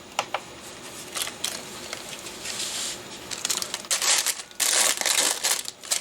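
Crinkling and rustling of wrapping, with a few sharp clicks and knocks, as a half-eaten burrito is handled and set on a scale for weighing; the rustling is loudest in a long burst a little after the middle.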